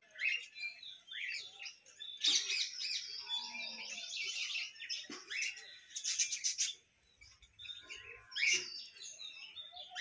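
Pineapple green-cheeked conures chirping in a quick string of short, high calls, with a brief lull about seven seconds in.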